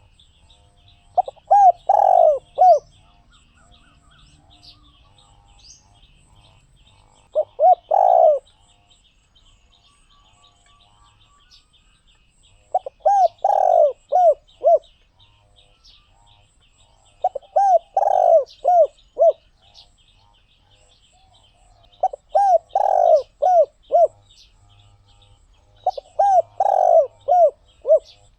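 Spotted dove cooing: six phrases about four to five seconds apart, each a short run of low coos with one longer, louder note in the middle. Faint, steady high-pitched chirping runs behind.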